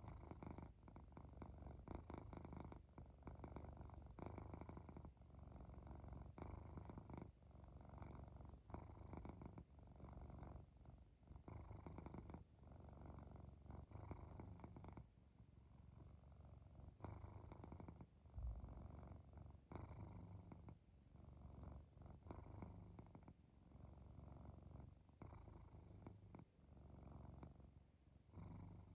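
Domestic cat purring steadily, the purr coming in regular phrases about once a second. There is a brief low bump about two-thirds of the way through.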